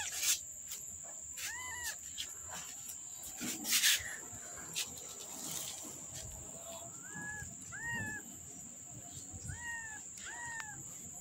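A newborn kitten, about six days old, mewing in short, high cries, about six times in two bunches. There are a couple of loud knocks in the first four seconds.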